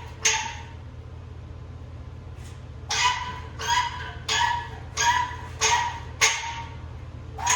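A dog barking over and over, short sharp barks about two-thirds of a second apart, pausing for about two seconds early on before starting again. A steady low hum runs underneath.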